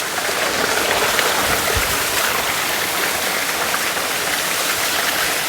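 Waterfall water rushing steadily over rocks, an even hiss of falling and splashing water.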